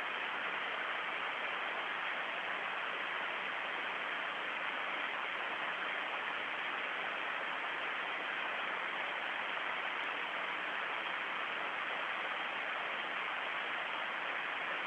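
Steady, even hiss of static on the broadcast audio feed, unchanging throughout, with no other sound.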